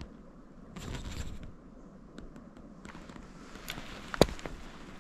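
Footsteps shuffling and crunching through dry fallen leaves on the forest floor, with rustling and small crackles, and a single sharp crack about four seconds in.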